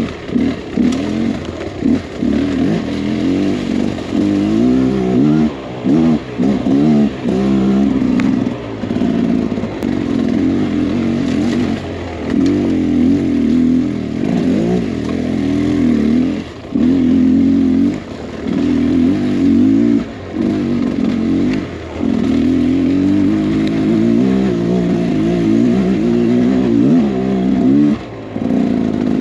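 Beta X-Trainer 300's two-stroke single-cylinder engine being ridden on a trail, revving up and down with the throttle. It drops off briefly every few seconds before picking up again.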